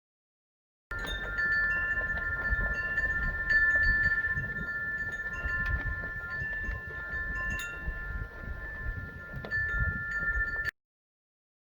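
Wind chimes ringing, several tones sustained and overlapping with lighter pings struck now and again, over a low rumble of wind on the microphone. The sound starts about a second in and cuts off suddenly near the end.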